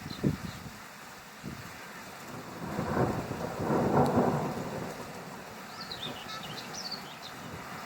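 Thunder rumbling over steady rain. The rumble swells about two and a half seconds in, is loudest around four seconds, then rolls away.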